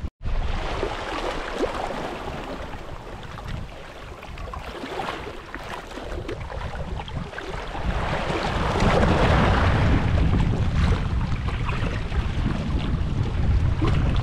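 Wind buffeting the microphone over a steady rush of sea water, heavier and louder from about halfway through.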